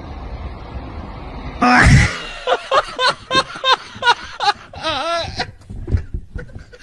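Wind buffeting a microphone, then, about a second and a half in, a man bursts into loud laughter: a rapid run of short pitched bursts, about three a second, that trail off near the end.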